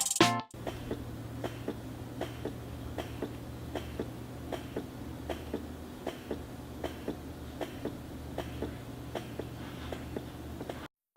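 Electric breast pump running: a steady motor hum with a short click about every three-quarters of a second as it cycles suction.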